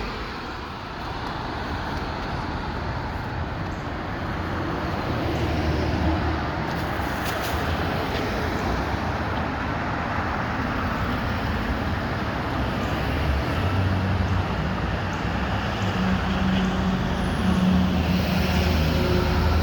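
City street traffic noise: a steady rush of passing vehicles. A low engine drone comes in about two-thirds of the way through and holds.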